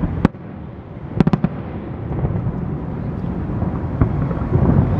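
Aerial fireworks bursting: a sharp bang just after the start, a quick cluster of several cracks about a second in, and another bang about four seconds in, over a continuous low rumble.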